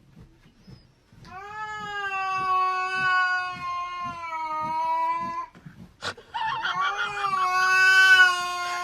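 A cat yowling in two long, drawn-out calls, each held at a nearly steady pitch for about four seconds, with a short sharp click between them.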